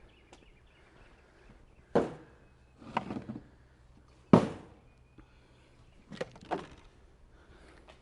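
A handful of separate knocks and thumps, like equipment being handled or a door moving: one about two seconds in, a short rattly cluster a second later, the loudest just past four seconds, and two lighter knocks near the end. No motor is running.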